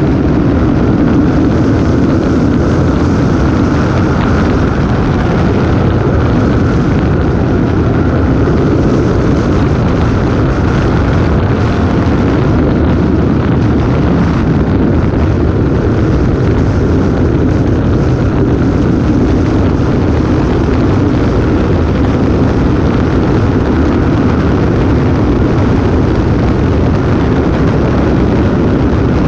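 Motorcycle cruising steadily down a highway: a constant engine note, mixed with wind rushing hard over the action camera's microphone.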